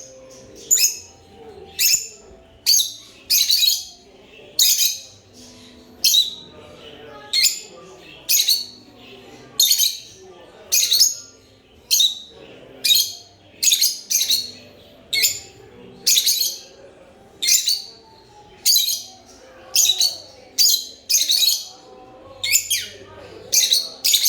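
Lovebirds chirping: sharp, high-pitched calls repeated steadily, about one a second.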